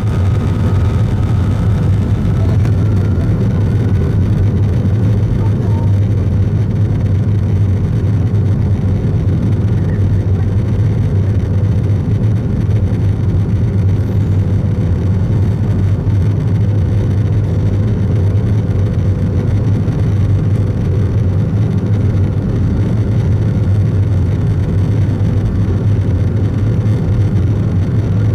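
Boeing 757 jet engines running with a steady low rumble, joined by a faint rising whine in the first few seconds.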